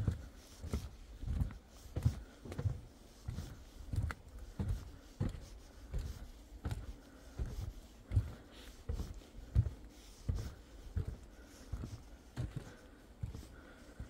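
Footsteps on a wooden plank boardwalk: steady hollow thuds, about three steps every two seconds, stopping near the end.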